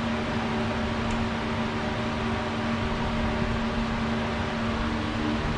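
Steady machine hum from a fan-type machine, one low tone with evenly spaced overtones over an airy hiss.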